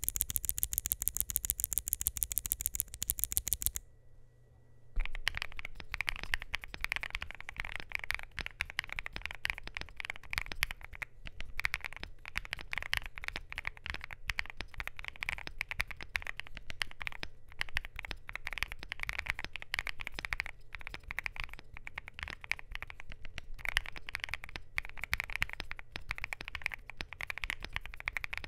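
Typing on a Luminkey LK65 mechanical keyboard with lubed, filmed Gateron Sylva switches in a polycarbonate plate, gasket-mounted, with Createkeebs Thera75 keycaps: a steady flow of fast key clacks starting about five seconds in. Before that comes a brighter, sharper run of evenly spaced clicks lasting about four seconds.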